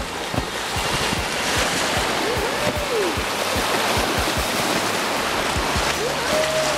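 Swift river current rushing through a riffle around a canoe, with many short low knocks underneath. Two tones that rise and then fall sound over the water, one about two seconds in and one near the end.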